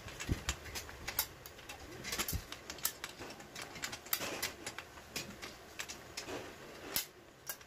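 Scattered light clicks and taps of hands working a bolt and fittings into a salon chair's stainless-steel armrest frame during assembly.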